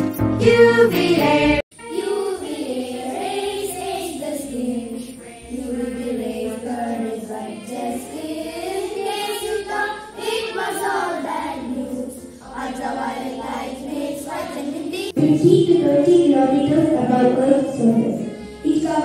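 A group of schoolchildren singing a song together into a microphone. It starts after an abrupt cut about a second and a half in. Near the end it cuts to a louder single child's voice at the microphone.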